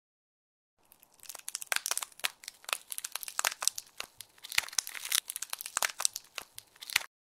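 Ice-crackling sound effect: a dense run of sharp crackles and crunches that starts about a second in and stops abruptly near the end.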